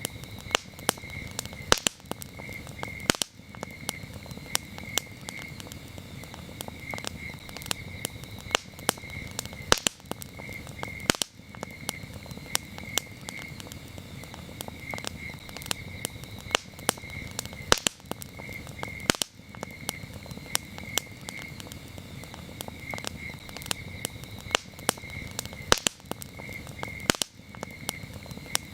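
Campfire crackling, with sharp wood pops over a low steady rustle, while crickets chirp in pulsing trills. The pops repeat in the same pattern about every eight seconds.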